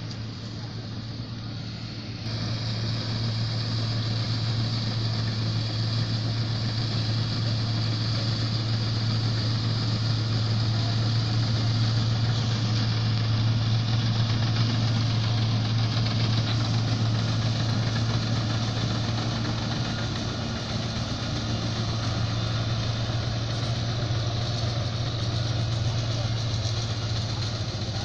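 John Deere 955 combine harvester working in wheat: its diesel engine runs as a steady low drone with the clatter of the threshing machinery, getting louder about two seconds in.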